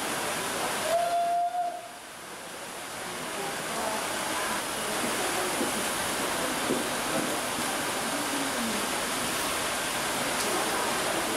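Standing BR 50 steam locomotive venting steam low around its cylinders and running gear: a steady hiss. A short whistle-like tone sounds about a second in, then the hiss drops away briefly and builds back up.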